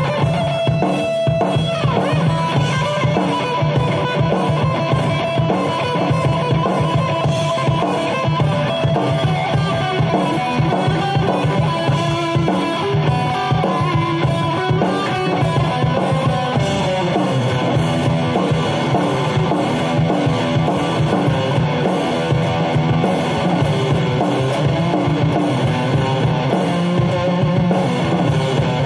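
Kramer Assault 220 FR electric guitar playing lead lines high on the neck, over a rock backing track with a drum kit.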